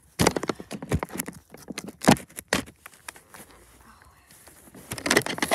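Plastic toy figurines clacking and scraping against a concrete block as they are moved by hand: a flurry of knocks and scrapes in the first three seconds and another short cluster near the end.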